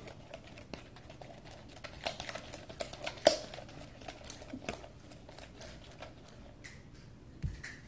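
A utensil stirring half-activated glue slime in a clear plastic bowl: irregular clicks, taps and scrapes against the bowl's sides, with one sharper knock about three seconds in.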